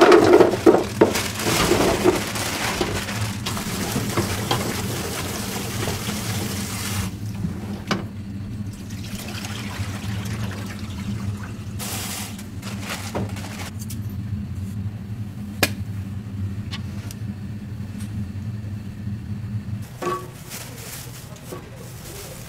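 Rice cakes tumbling from a plastic bag into a large aluminium pot, then water running into the pot over them as it fills. A steady low hum runs under the water and stops near the end.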